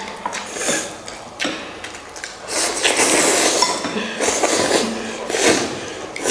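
Instant noodles being eaten fast: bursts of loud slurping, with utensils clinking now and then against bowls.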